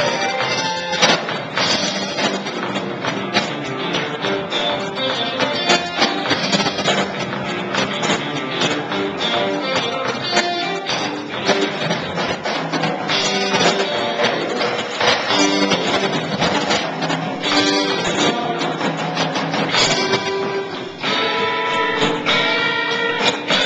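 Live band music with guitar to the fore, playing continuously.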